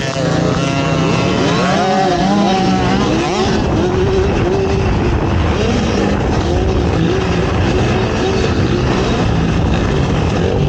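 Off-road race quad engines revving up and down, more than one engine at a time, with pitch rising and falling as the throttle is worked.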